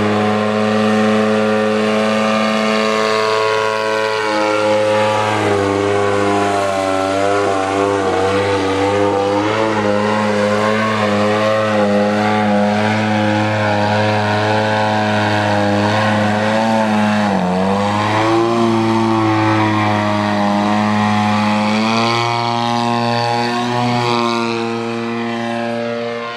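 Radio-controlled aerobatic model airplane's engine and propeller running continuously. The pitch wavers up and down as the plane throttles and manoeuvres, with a brief dip in pitch about two-thirds of the way through.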